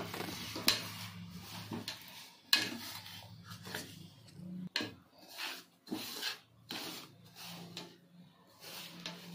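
Hands rubbing and squeezing crumbly maida-and-sooji flour in a steel bowl, in irregular rasping strokes with a few sharper knocks. This is the flour being worked with ghee and a little warm water as the samosa dough starts to come together.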